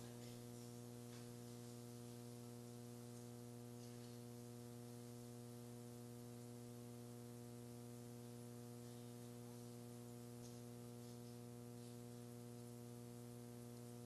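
Faint, steady electrical mains hum with light hiss, a low buzz that does not change.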